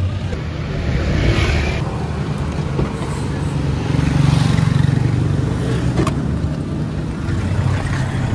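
Car and street traffic noise: a steady low engine rumble with road hiss, and a single sharp click about six seconds in.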